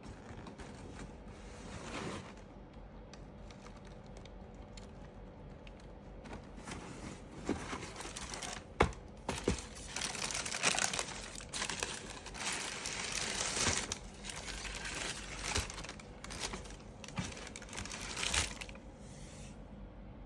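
Shoe box and packing paper being handled: crinkling and tearing of paper with scattered knocks and clicks of cardboard. Light at first, then busier from about a third of the way in, with one sharp knock near the middle.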